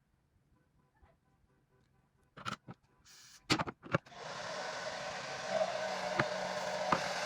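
A few handling clicks and knocks, then a handheld hair dryer switched on about four seconds in, running with a steady blowing noise and a faint motor whine.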